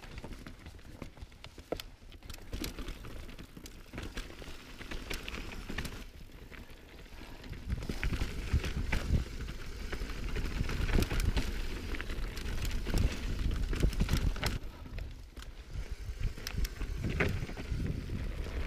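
Mountain bike rolling down rough, rocky singletrack: tyres crunching over dirt and rock with frequent sharp knocks and rattles, over wind rumbling on the microphone. It gets louder about eight seconds in.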